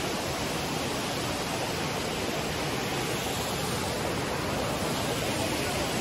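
Steady rush of a large waterfall: heavy water pouring down.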